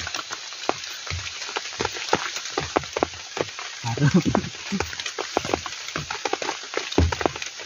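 Heavy rain falling, a steady hiss dotted with many separate, irregular drop impacts. About four seconds in, a short low voice-like sound is heard, and there is a single thump near the end.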